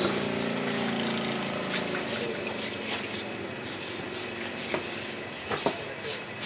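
Knife cutting into the skin and flesh of a large trevally on a wooden chopping block, with scattered light clicks and a few sharper knocks near the end. A steady hum fades out in the first two seconds.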